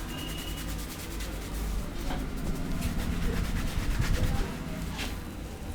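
Hands rubbing and patting a person's head and hair in a barber's head massage, with a fast, even run of strokes in the first second or two, then slower rubbing and a few light clicks.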